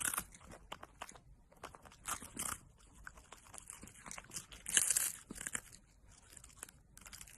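A dog crunching on something: irregular short crunches and crackles, loudest about five seconds in.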